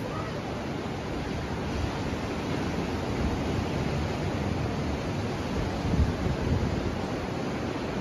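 Steady rush of ocean surf mixed with wind blowing across the microphone, gusting harder about six seconds in.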